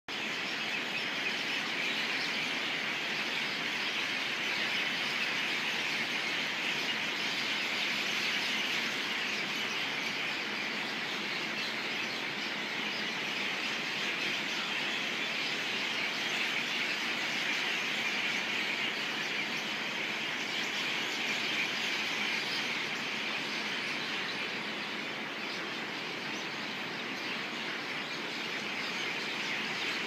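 A huge flock of birds chirping all at once, a dense, continuous chatter of countless overlapping calls that holds steady throughout.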